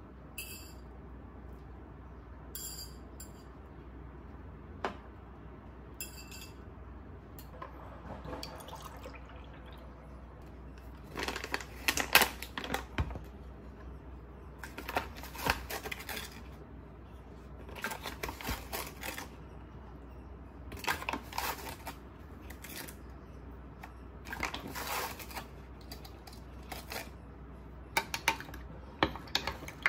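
Dishes and utensils in kitchen work: a few ringing clinks, then short bursts of clattering every few seconds, over a low steady hum.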